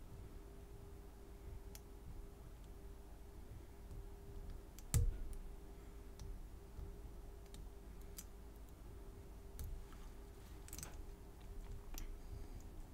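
Scattered small metallic clicks of a hook pick and tension wrench working the pins inside an American A701D padlock, with one louder knock about five seconds in.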